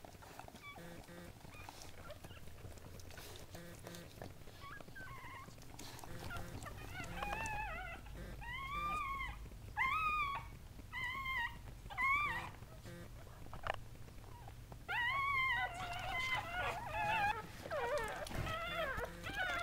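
Golden Doodle whimpering: after a quiet start, a string of short, high-pitched whines from about seven seconds in, then a quicker run of them over the last few seconds.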